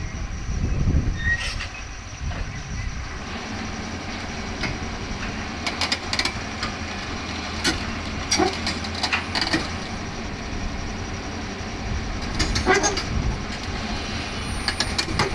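Excavator's diesel engine running steadily, with irregular metallic clanks and squeals from its steel tracks and undercarriage as it moves.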